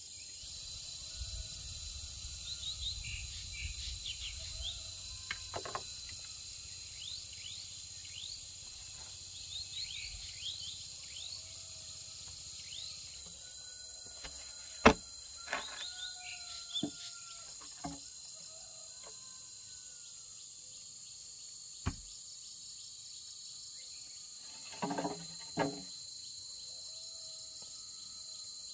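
Steady high buzz of forest insects with birds chirping and whistling throughout. Over it come a few sharp knocks from bamboo poles being handled and set into a post hole, the loudest about halfway through and a close pair near the end.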